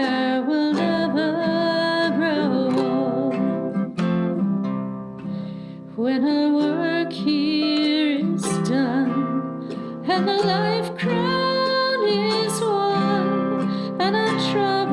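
Music: a hymn sung by a voice over acoustic guitar accompaniment.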